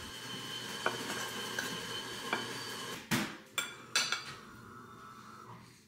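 Fork clinking lightly on a plate over a steady frying sizzle, then two louder sharp noises about three and four seconds in.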